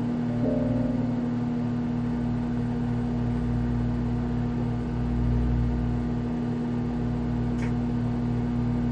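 Microwave oven running with a steady electrical hum over a low rumble, and one brief click about seven and a half seconds in.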